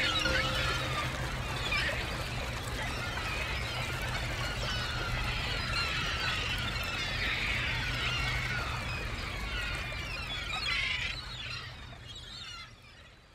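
Outdoor ambience of many short high chirps over a low steady hum, fading out near the end.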